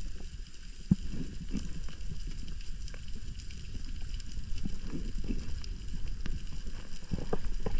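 Underwater ambience heard through a camera housing while a speargun is held out: a steady low rumble of water with scattered short knocks and clicks.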